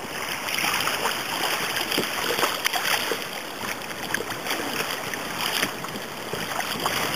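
Water rushing and splashing along the hull of a sit-on-top kayak moving under sail through choppy sea, a steady wash with many small splashes.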